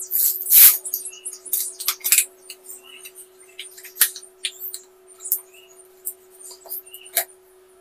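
Plastic clatter, knocks and short squeaks of an RO water purifier's white plastic filter housings being handled and twisted open, loudest in the first second.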